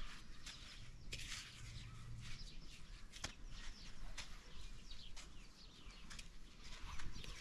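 Soft gritty rustling and crackling as raw chicken is pressed and turned in a plate of dry breadcrumbs, with small birds chirping faintly in the background.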